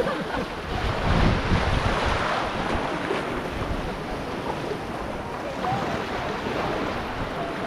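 Wind buffeting the microphone over the steady rush of sea water, with gusty low rumbles throughout.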